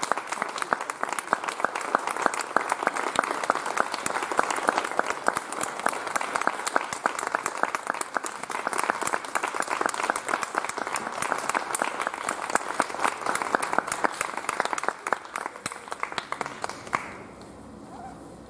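Audience applauding, thinning out and stopping about a second and a half before the end.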